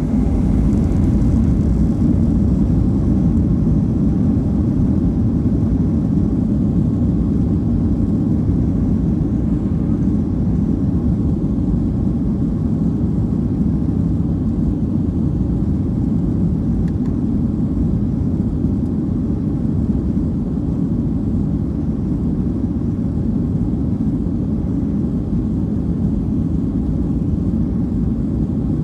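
Steady low rumble of a Boeing 737-900ER's CFM56-7B jet engines and rushing air, heard inside the cabin. It swells right at the start, then holds steady.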